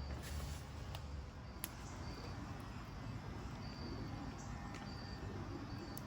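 Outdoor ambience: short high chirps repeating about once a second, a few sharp clicks, and a low steady rumble.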